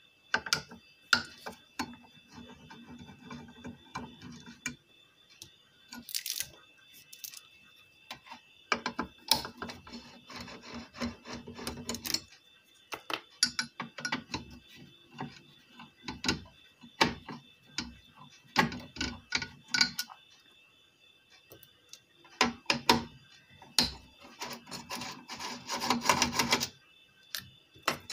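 Irregular clicks, knocks and scrapes of a screwdriver and metal parts as an inverter's circuit board and aluminium heatsinks are unscrewed and handled, in clusters with short pauses, the busiest near the end. A faint steady high tone runs underneath.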